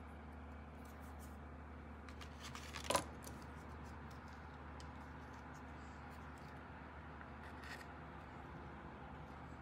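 Small handling sounds of a gouache paint tube: a short, sharp clack about three seconds in as the tube is pulled from its plastic tray, then faint clicks and rustles as it is handled over the palette, over a low steady hum.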